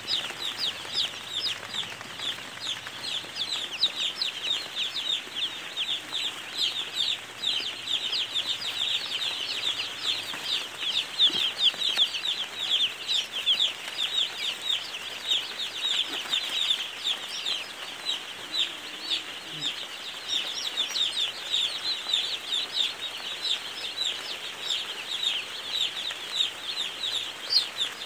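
A large flock of young chicks peeping all at once: a dense, continuous chorus of short, high, falling cheeps overlapping one another.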